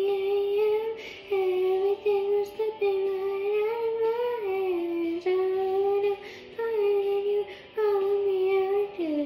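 A girl singing a slow melody into a handheld karaoke microphone. She holds long, gliding notes with hardly any clear words.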